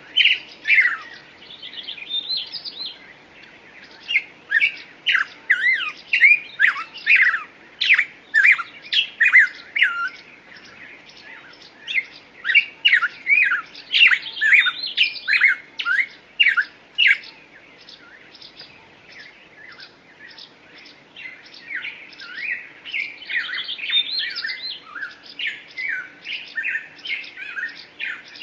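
Small birds chirping in quick runs of short, sharp notes, several a second, with a quieter stretch of softer calls about two-thirds of the way through.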